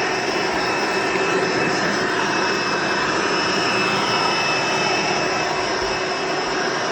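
Hoover Encore Supreme vacuum cleaner from the early-to-mid 1990s running steadily while vacuuming the floor: a loud, high motor whine over a rushing hiss.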